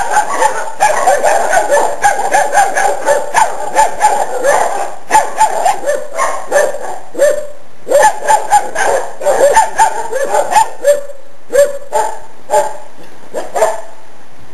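Several puppies barking and yipping in quick, overlapping calls, which break into separate bursts and grow sparser over the last few seconds.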